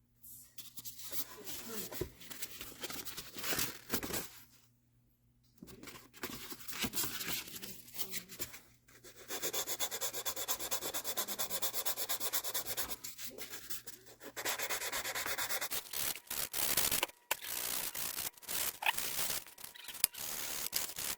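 Wet/dry sandpaper rubbed by hand over soft metal trim in quick back-and-forth strokes, using a coarser grit to work out a dent. There is a brief pause about four seconds in.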